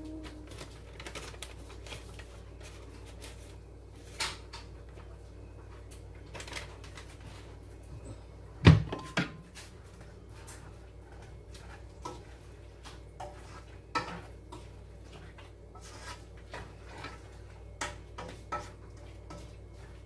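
A spatula stirring food in a non-stick frying pan: scattered light taps and scrapes against the pan, with one loud knock about nine seconds in and a smaller one just after it, over a low steady hum.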